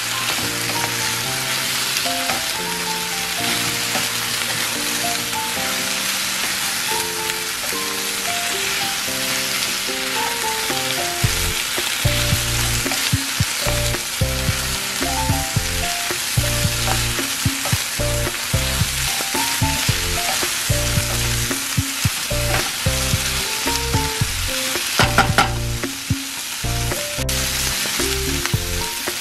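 Beef slices sizzling in a hot frying pan as they are stirred and turned with a wooden spatula. Background music plays underneath, with a bass line coming in partway through.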